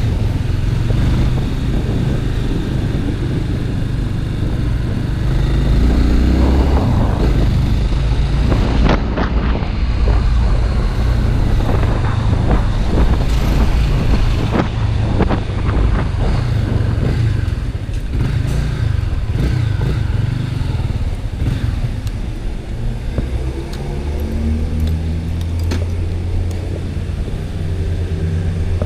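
Honda Twister motorcycle's single-cylinder engine running while being ridden, its low drone shifting with speed. Rustling and clattering noise comes through in the middle of the stretch.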